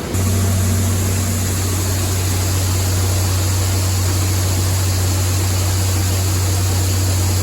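Heavy farm machinery running steadily: a deep, even engine hum with a steady hiss on top, starting abruptly just after the beginning.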